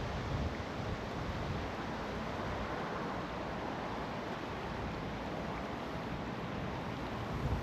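River water rushing steadily over shallows, an even hiss with no breaks.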